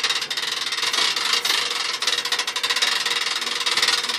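Hand-cranked boat trailer winch being wound, its ratchet clicking rapidly and steadily as it draws the boat tight onto the trailer.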